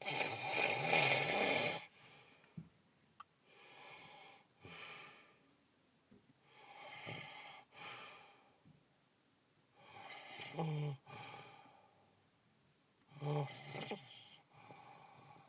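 A person snoring heavily: about five harsh, rasping snores, one on each breath roughly every three seconds, some with a low buzzing rattle. The first snore is the loudest.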